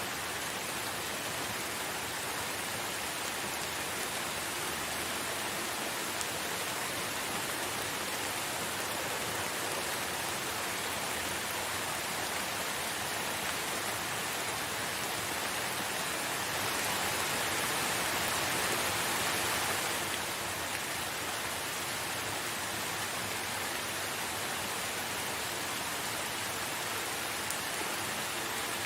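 Steady rain falling, an even hiss of drops on surfaces, swelling slightly about two-thirds of the way through.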